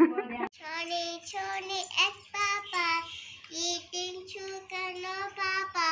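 A young girl singing a short song in a high voice, her notes held briefly and evenly one after another.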